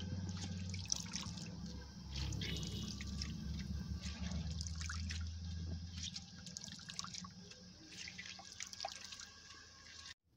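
Water dripping and splashing into a plastic colander as cooked turnip greens are squeezed out by hand, handful after handful, with a low steady hum underneath.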